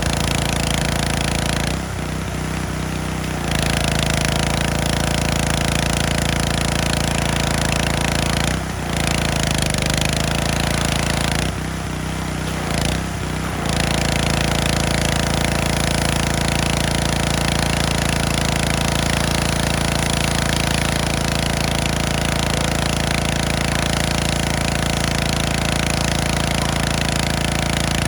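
Pressure washer running steadily, its spray hissing loudly against the grain drill's metal. The spray is briefly interrupted three times: about two seconds in, near the middle, and for a couple of seconds around the middle to two-thirds mark.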